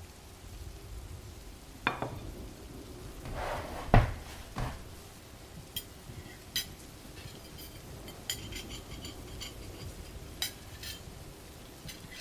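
Dishes being set down with a few dull knocks, the loudest about four seconds in, followed by a series of light clinks of cutlery against plates.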